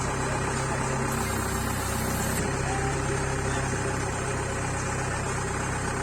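Kubota DC-70 combine harvester's diesel engine idling steadily, freshly started.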